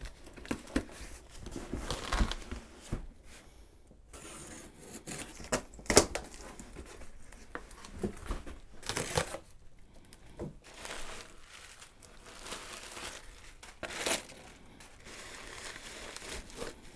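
Cardboard box being opened by hand: packing tape torn off, the box's flaps and sides handled, then plastic packing wrap crinkling as it is pulled out. Irregular rustling and scraping with a few sharp knocks, the loudest about six seconds in.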